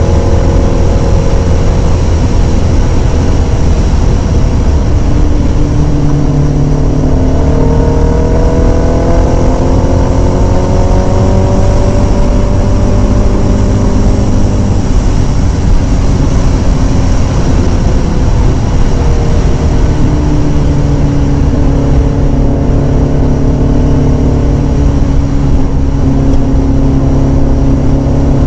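Kawasaki Ninja sport bike engine running at road speed. Its pitch climbs as it accelerates from about five seconds in, eases back down after about twelve seconds, then holds steady. Heavy wind rumble on the microphone runs underneath.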